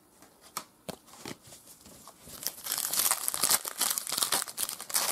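Foil wrapper of a 2006 Bowman Chrome football card pack crinkling as it is torn open by hand, starting about two seconds in. Before that, a few light clicks of cards being handled.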